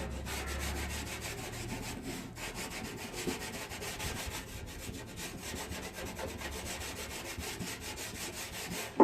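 Scotch pad wetted with white spirit being rubbed over the surface of an old can in quick, close scrubbing strokes, scouring off dirt and rust spots.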